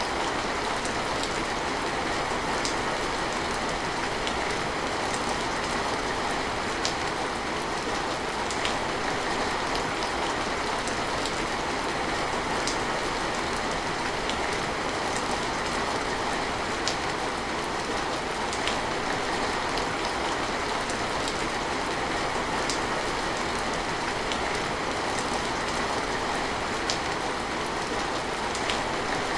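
Steady rain falling, an even unbroken hiss with sharp ticks of single drops now and then.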